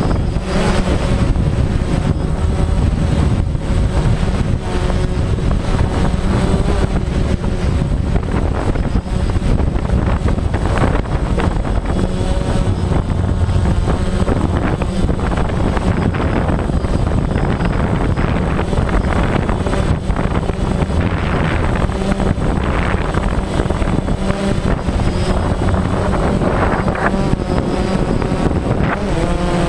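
Helicopter engine and rotor noise heard from aboard the aircraft: a loud, steady drone with a constant low hum.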